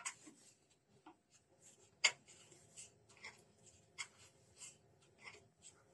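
Ball valves on a heating manifold being turned back and forth by their butterfly handles: faint scattered clicks and rubbing of the handles and valves, the sharpest click about two seconds in. The valves are being exercised so they do not seize from standing unused.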